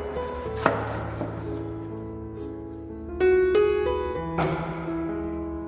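Background piano music with sustained notes and chords, and one sharp click about half a second in.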